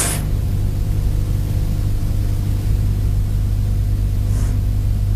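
Steady low electrical hum with faint hiss, the background noise of an old recording. A brief sharp hiss comes right at the start.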